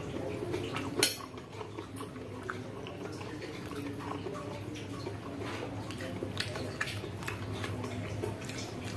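Metal fork clinking and scraping against a ceramic bowl while stirring and lifting a tangle of fried instant noodles: scattered light ticks, with one sharp clink about a second in.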